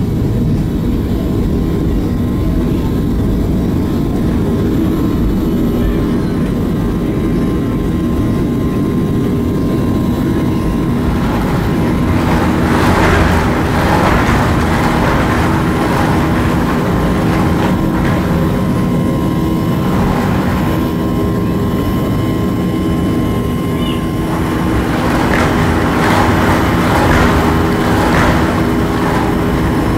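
Airliner's jet engines at takeoff thrust heard from inside the cabin, a steady rumble with a steady hum, through the takeoff roll, liftoff and initial climb. Swells of rushing noise come and go from a little under halfway through.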